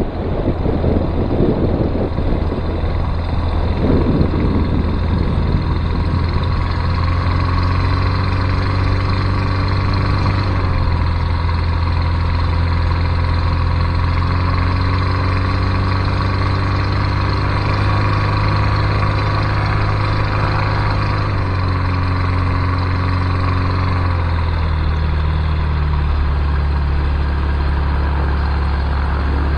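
Light aircraft's piston engine and propeller running at low power while the plane rolls over grass; the engine note steps to a new pitch a few times. A rush of wind noise on the microphone fades out over the first few seconds.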